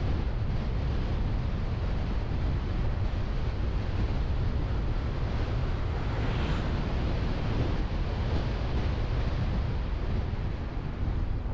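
Wind buffeting a car-mounted action camera's microphone over the rumble of a car driving on the road, a steady low noise with a brief louder rush about six seconds in.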